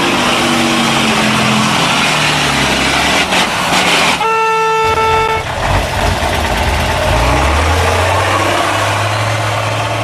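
Heavy truck engine running under load, its revs rising and falling, with a brief crash a little before four seconds in. A horn sounds once for about a second, about four seconds in, and the engine then settles into a steady low drone.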